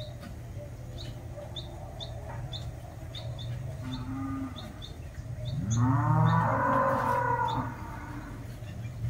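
Cattle mooing: a shorter low call about four seconds in, then one long, loud moo that swoops up in pitch, from cows coming up to a vehicle they expect to bring them feed. A small bird chirps repeatedly over a steady low hum.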